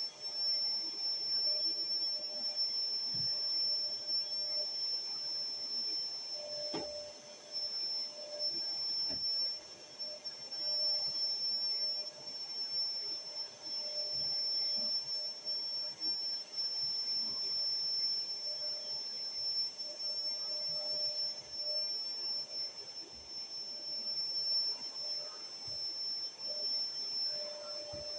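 Drum-type canister vacuum cleaner running steadily with a high, constant whine, with a single knock about seven seconds in.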